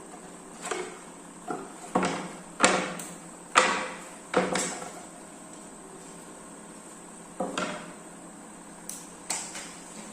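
A series of irregular knocks and taps, about eight in ten seconds, each with a short fading ring, over a faint steady hum. They are typical of wooden parts being handled and tapped during assembly.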